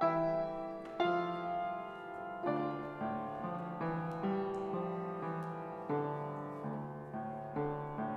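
Solo piano playing a slow, quiet prelude: chords struck about once a second, each left to ring and fade.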